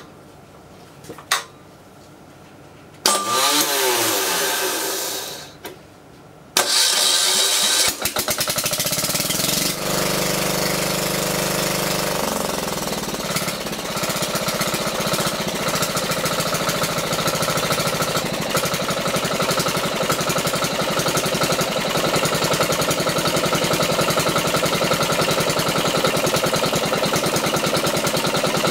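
Nigata NGT5 diesel generator being started: a few clicks, then the electric starter spins for about three seconds, its pitch rising and falling, and stops. It cranks again and the diesel catches about eight seconds in, then runs steadily. The owner thinks the starter is the wrong one for the engine.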